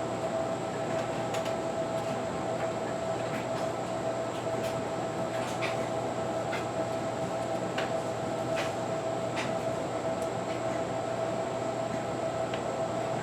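A steady mechanical hum with a constant whining tone runs throughout. Over it come scattered light clicks and ticks from the ceiling fan's electrical wires and connectors being handled.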